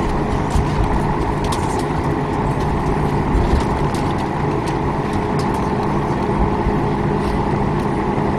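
Boeing 737 MAX 8's CFM LEAP-1B turbofan running at taxi power, heard from inside the cabin as a steady hum with a few faint ticks.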